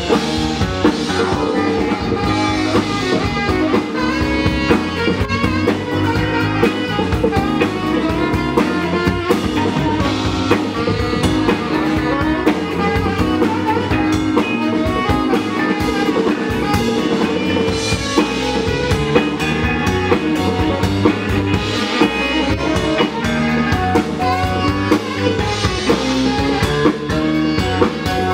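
Live soul band playing an instrumental passage with a steady beat: a tenor saxophone leads over drum kit and electric guitar.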